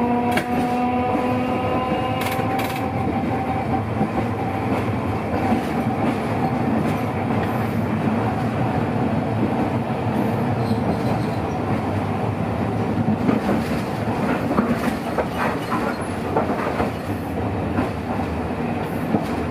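Hiroden 1900-series streetcar running on street track, heard from inside the car: a steady rumble with short clicks from the wheels over rail joints. A whine with several pitches at the start fades out after about two seconds. The clicks come more often past the middle.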